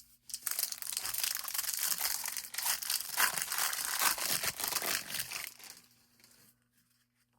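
Wrapper of an Upper Deck Series 1 hockey card pack being torn open and crinkled for about five seconds, then dying away.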